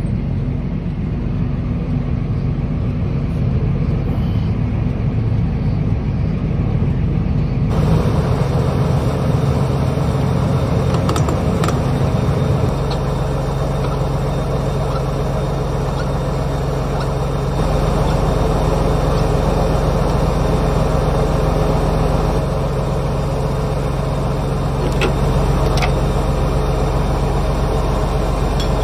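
John Deere tractor's diesel engine running steadily at idle, its note shifting slightly partway through. A few light clicks sound over it.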